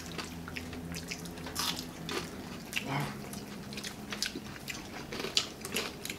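Eating sounds from several people eating by hand: chewing, lip smacks and small wet mouth clicks, coming irregularly.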